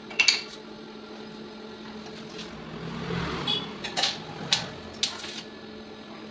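Stainless steel railing pipes clinking and tapping against each other as they are fitted: one loud clink with a short metallic ring just after the start, then a run of sharp taps about half a second apart in the second half, over a steady low hum.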